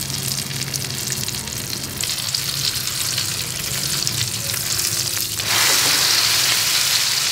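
Eggplant omelette shallow-frying in hot oil in a skillet: a steady crackling sizzle that turns louder and brighter about five and a half seconds in.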